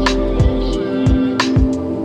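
Background music with a steady beat: held synth tones over regular kick-drum strokes and sharp high percussion hits.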